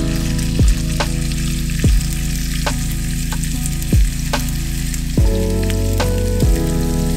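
Raw ground-pork patty sizzling in hot oil in a nonstick frying pan as it sears over medium heat, a steady frying hiss. Background music with a slow, regular beat plays along with it.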